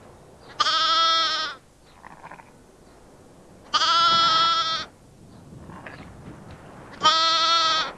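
Sheep bleating three times, evenly spaced. Each call lasts about a second and has a wavering, quavering pitch.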